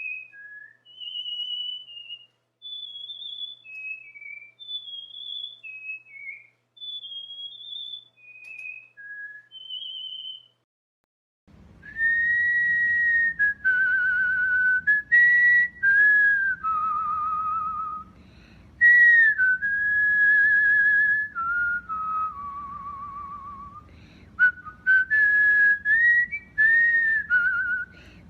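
Cockatiel whistling its song: short, high whistled notes for about ten seconds, a brief pause, then a louder, lower whistled tune of longer, sliding and wavering notes with room hiss behind it.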